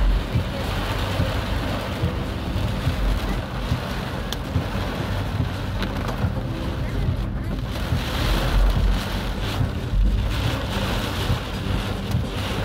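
Heavy rain drumming steadily on a car's roof and windshield, heard from inside the moving car, over the low rumble of the car on the flooded road.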